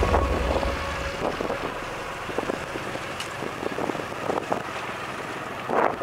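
Outdoor background noise with wind buffeting the microphone, louder in the first second, and scattered faint knocks.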